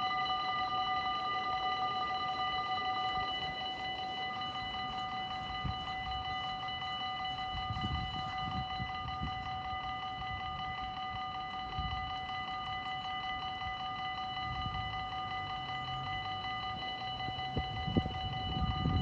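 Dutch level-crossing warning bell ringing steadily while the red light flashes and the half barriers are down. A low rumble comes and goes from about halfway and grows near the end.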